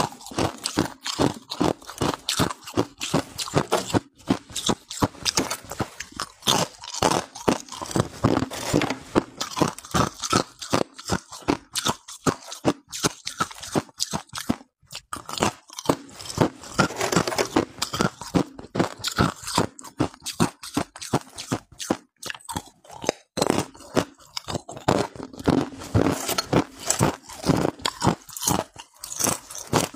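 Hard ice being bitten and chewed, close to the microphone: a rapid run of sharp cracks and crunches, several a second, with only brief pauses.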